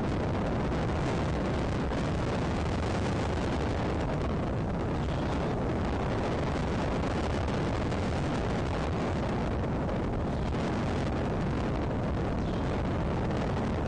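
Wind buffeting an outdoor nest-camera microphone: a loud, steady, deep rushing noise with no let-up.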